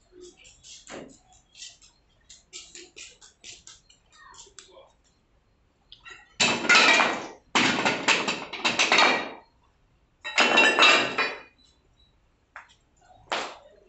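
Metal parts of a dismantled loom being handled: light clinks and taps at first, then about halfway through two loud stretches of metal clatter and scraping, each one to three seconds long.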